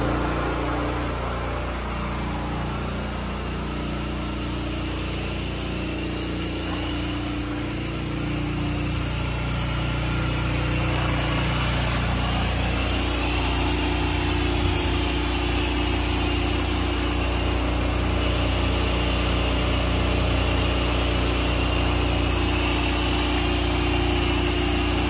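Pressure washer running steadily: an engine hum under the hiss of a high-pressure water stream from the wand spraying against a building wall.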